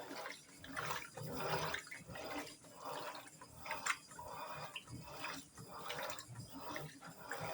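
Electrolux Turbo Economia 15 kg top-loading washing machine agitating an overloaded drum of clothes in water: a rhythmic swishing and sloshing that swells a little faster than once a second.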